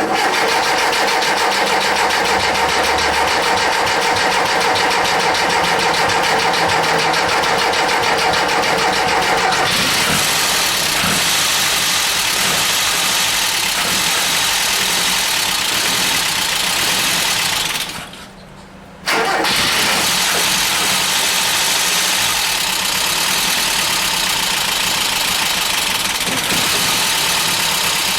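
Mazda B2200's four-cylinder engine being cranked over by the starter, with a steady whine for about ten seconds. It then catches and runs rough. About eighteen seconds in the sound drops away for a moment and then comes straight back. After the head job the engine runs on only two cylinders, by the owner's account.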